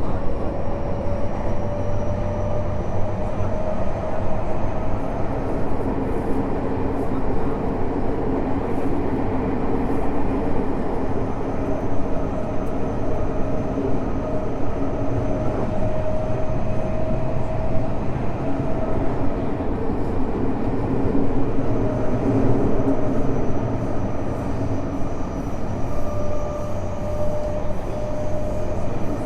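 Inside a Tokyo Metro 05 series subway car running along the line: a steady rumble of wheels and track, with the whine of its Mitsubishi IGBT-VVVF traction inverter and motors fading in and out three times, each time rising slightly in pitch.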